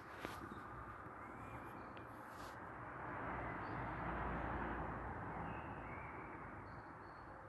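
Night-time outdoor field recording: a few faint, short bird calls over a noisy background that swells and fades again through the middle.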